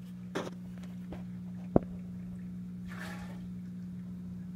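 Steady low hum with faint watery sounds from a running home aquarium. A single sharp tap comes a little under two seconds in, and a brief noisy rustle about three seconds in.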